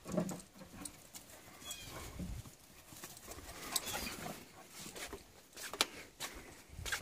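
Two dogs play-fighting on grass: scuffling and paw steps with a low grunt near the start, scattered sharp clicks, and a couple of short high calls.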